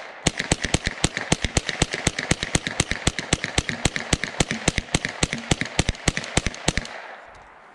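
A fast string of gunshots, about seven a second and several dozen in all, stopping near the end.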